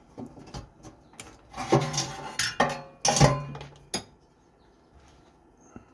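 Sheet-metal parts of a Suburban NT-16S RV furnace clinking and scraping as the burner cover is worked loose by hand. It is a run of clicks and metallic scrapes, loudest about three seconds in.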